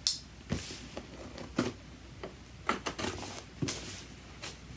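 Small utility knife cutting the packing tape on a cardboard parcel while the box is shifted and turned on a table: a string of short rasps and knocks.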